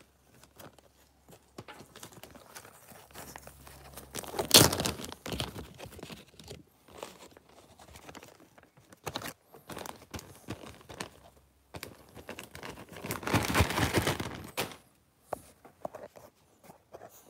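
Plastic zip-top bags and wrappers crinkling and rustling as they are handled, with louder bursts of crackling about four seconds in and again around thirteen to fourteen seconds.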